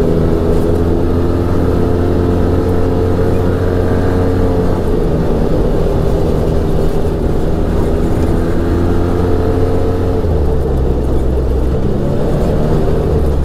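Arctic Cat Wildcat Trail 700 side-by-side's engine running under way, heard from inside the cab. The engine holds a steady pitch, drops about ten seconds in as the revs fall, then picks up again near the end.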